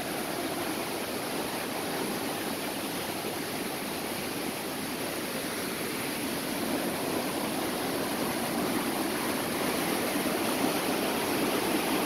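Steady rush of water from a small waterfall spilling in thin strands over a mossy rock face.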